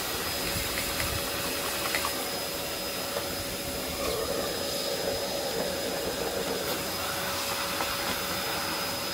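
Vacuum cleaner running steadily as its hose nozzle sucks dust off the base of a disassembled upright vacuum, with a constant motor whine over the rush of air.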